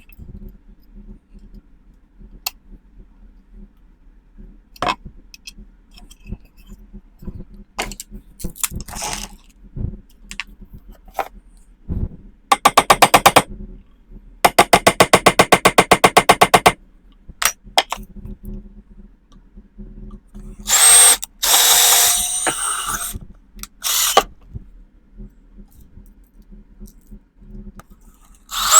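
Power drill run in short bursts: two spells of rapid, evenly spaced hammering about halfway through, then a couple of seconds of higher whirring near the end, with scattered knocks and clicks in between.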